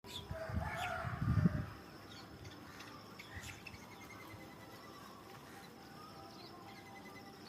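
Dawn ambience of birds chirping and calling, with a short falling trill about halfway through and a thin steady high tone underneath. A louder, low rumbling sound fills the first second and a half.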